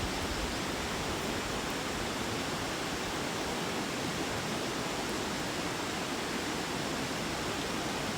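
Mountain stream rushing: a steady, even sound of flowing water that does not change.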